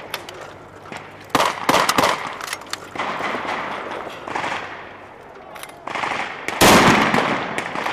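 Vehicle-mounted heavy machine gun firing blank rounds through a blank-firing adapter in short, uneven bursts. The loudest burst comes about two-thirds of the way through.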